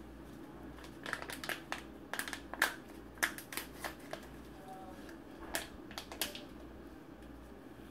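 An irregular run of sharp crinkles and clicks, as of wrapping or small supplies being handled. It starts about a second in and dies away after about six seconds.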